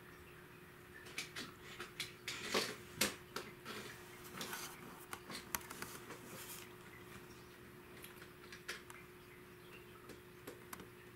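A flurry of light clicks and knocks as a cat bats a small plastic toy truck about on a wooden floor, thinning to a few scattered taps in the second half. A steady faint hum runs underneath.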